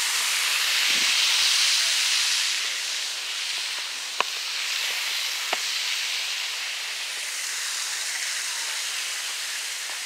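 Small waterfall rushing, a steady hiss of falling water that grows fainter after about three seconds. Two sharp clicks sound in the middle, about a second and a half apart.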